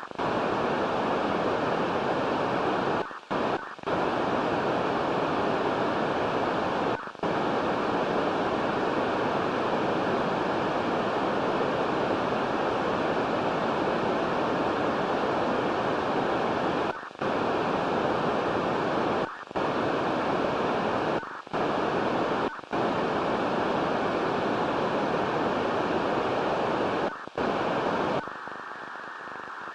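Receiver noise from an Icom IC-736 HF transceiver: a steady rushing hiss, heaviest in the lower range, broken by short dropouts every few seconds and turning quieter near the end. The owner calls it digital noise on receive and hears it when the attenuator is switched on.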